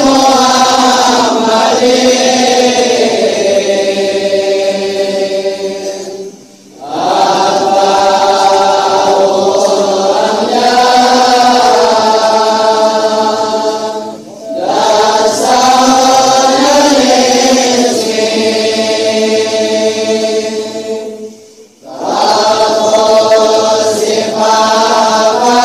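A man's voice chanting rawi, the Arabic prose of the Maulid, unaccompanied and melodious. The long phrases rise and fall slowly in pitch and break off briefly for breath three times.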